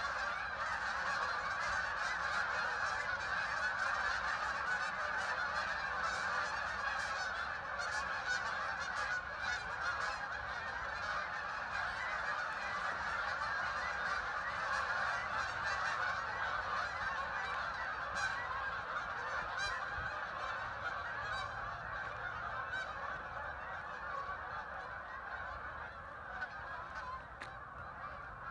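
A huge flock of waterfowl calling all at once, a dense, unbroken chorus of many overlapping calls that eases slightly toward the end.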